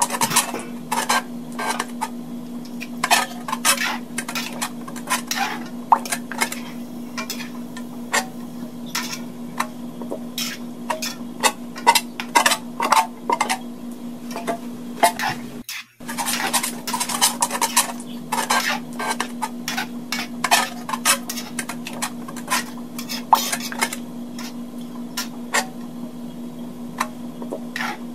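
A metal ladle clinking and scraping against a metal wok as chicken pieces are stirred and turned in their juices, in irregular knocks over a steady low hum. The sound breaks off for a moment about sixteen seconds in, then the stirring resumes.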